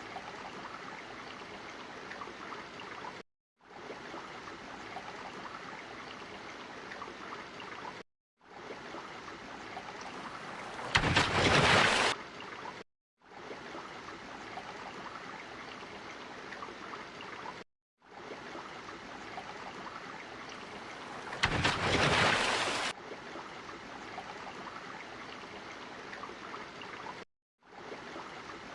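Steady ocean water ambience used as a sound effect, a constant watery wash broken by short silent cuts every several seconds where the loop restarts. Two louder rushing swells come through, about a third of the way in and again about three quarters of the way in.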